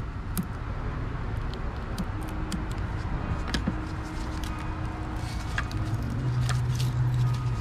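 Gloved hands handling an engine wiring harness: scattered small clicks and crackles from the plastic loom and wires, over a steady low hum.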